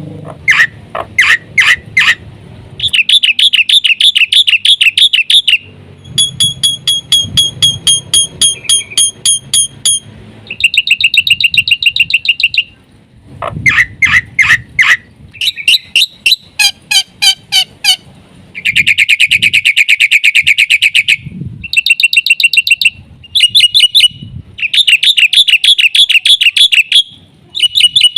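Black-winged myna (jalak putih) singing a varied, loud song of rapid trills, repeated high whistled notes and chattering phrases, in bursts of one to three seconds with short pauses between them. The song is full of isian, phrases borrowed from other birds.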